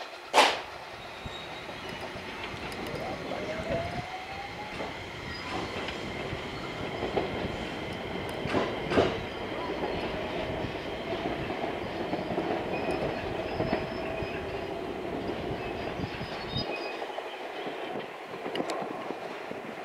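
Yellow electric multiple-unit train pulling away and running off down the line, its motors whining up in pitch about three seconds in and holding a steady tone later on. Wheels clack over rail joints and points, with two sharp clacks about nine seconds in; a single sharp clack just after the start is the loudest sound.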